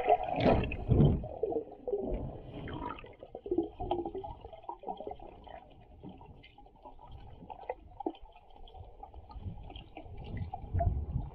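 Muffled gurgling and sloshing of water heard through an action camera held underwater by a snorkeler. It is loudest in the first second or so and swells again near the end.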